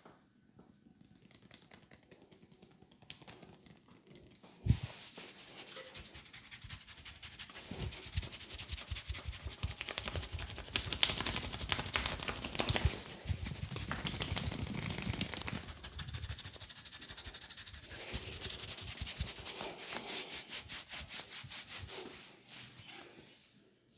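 Hands rubbing and scratching fast through a man's short hair and scalp during a head massage. It starts soft, and after a sharp tap about five seconds in it becomes a loud, dense scratching. Near the end it settles into a quick, even rhythm of strokes.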